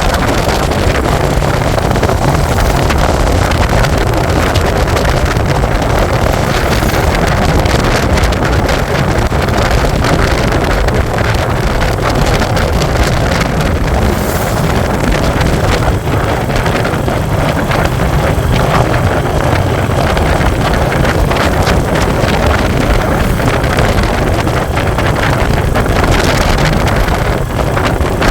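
Royal Enfield Hunter 350's single-cylinder engine and exhaust running steadily while the motorcycle is ridden, with wind buffeting the microphone.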